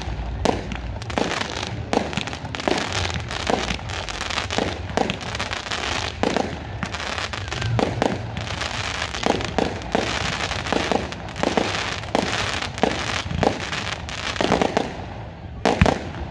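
Fireworks display: a rapid run of bangs from bursting aerial shells over dense crackling, several reports a second, thinning briefly near the end.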